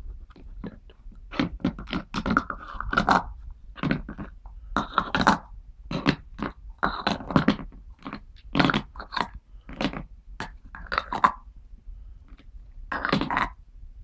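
Plastic stacking cups clicking, knocking and scraping on a plastic box lid as a Senegal parrot grips, lifts and sets them down with its beak, in irregular clusters of clatter.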